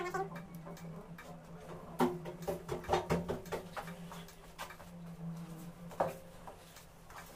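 A small brush scrubbing the wet display-connector pads on a phone's circuit board, with scattered light clicks and scrapes, the loudest around two to three seconds in and again at six seconds, over a steady low hum.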